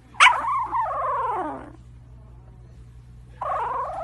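Two drawn-out pitched calls from a pet animal. The first starts sharply about a quarter second in and slides down in pitch over about a second and a half. The second starts near the end and holds a steady pitch.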